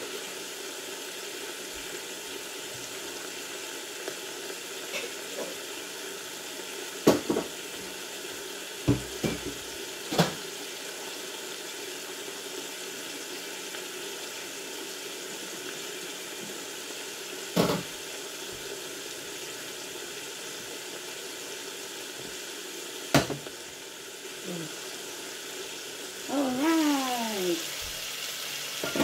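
Steak sizzling steadily in butter in a covered frying pan, with a few sharp clinks spread through. Near the end comes a short falling squeal as the glass lid is lifted off the pan.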